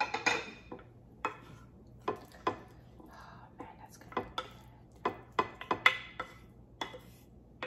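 Wooden spoon scraping and knocking against a plate in a dozen or so short strokes, gathering up the last of the rice and sauce.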